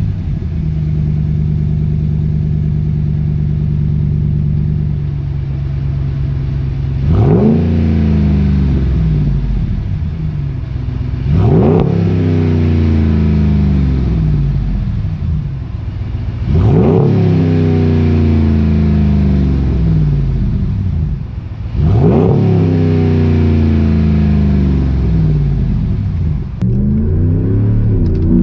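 RAM 1500's 5.7 L Hemi V8 through a Flowmaster FlowFX straight-through direct-fit muffler and dual tailpipes, idling and then revved four times, each rev rising sharply and falling back to idle. Near the end it is heard from inside the cab as the truck accelerates away.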